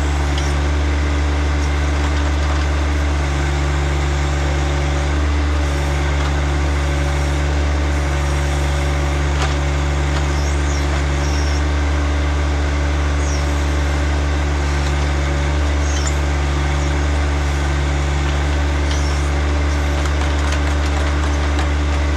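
John Deere tractor backhoe's diesel engine running at a steady speed.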